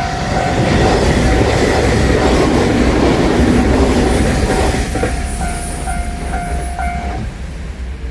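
JR Shikoku Anpanman train passing over a level crossing, its wheels on the rails swelling to a loud peak and then fading as it goes by. Over it the Japanese crossing bell dings about twice a second, then stops near the end as the crossing clears.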